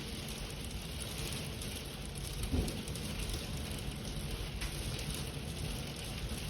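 Heavy rain falling steadily with wind, and one brief low thump about two and a half seconds in.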